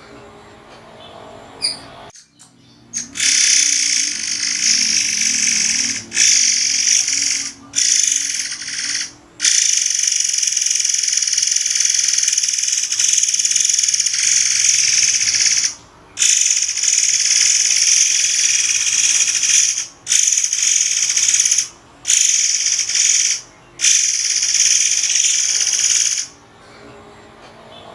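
Murai air songbird singing long runs of high, piercing notes, broken by short pauses every few seconds. This is a master recording of the song, meant for training caged songbirds.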